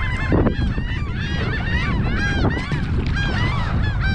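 A flock of birds calling, many short arching calls overlapping one another without a break, over a low steady rumble of wind on the microphone.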